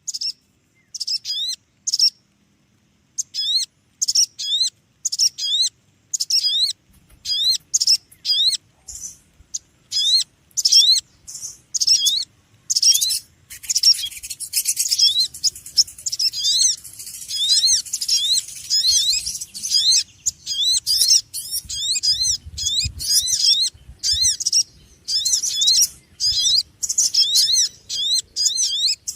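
Small birds chirping noisily: rapid, high-pitched, sweeping chirps in short bursts that thicken from about 13 seconds in into a dense, unbroken chatter of several birds.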